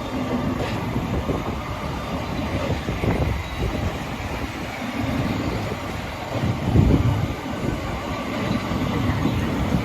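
Passenger train running past: a steady rumble of wheels on the rails, loudest about seven seconds in.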